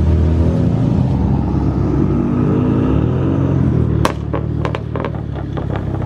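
Car engines running close by, one revving up briefly, followed near the end by a rapid string of sharp cracks.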